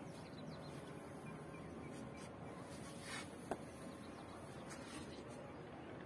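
Faint steady outdoor background noise, with one brief, sharp sound about three and a half seconds in.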